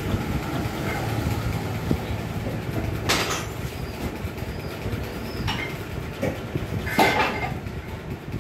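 Metal parts and tools being handled on a Bajaj Pulsar 150 engine under repair: sharp metallic clinks, about three seconds in and again near the end, over a steady low background rumble.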